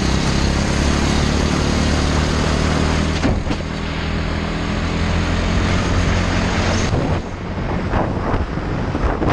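Racing kart engine running hard at high revs, heard from on board, easing off briefly about three seconds in and dropping away around seven seconds as the kart slows into a turn.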